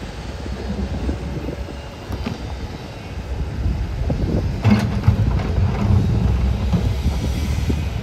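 Komatsu D61EX bulldozer working, its diesel engine rumbling and its tracks and blade clanking over rock. The rumble grows louder about halfway through, with a sharp knock of rock just after.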